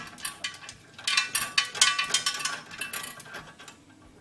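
Quick run of metallic clicks and clinks, densest from about one second in until near the end, as the bottom guide-pin bolt of a W204 Mercedes C-Class front brake caliper is undone with a hand tool.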